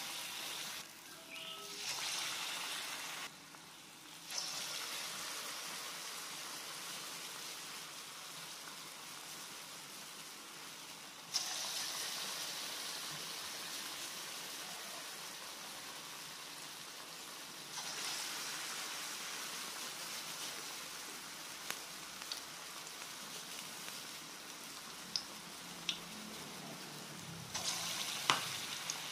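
Cassava balls deep-frying in hot oil in a wok: a steady sizzle and bubbling that steps louder and quieter a few times. Near the end there are a few light clicks as a metal spatula touches the wok.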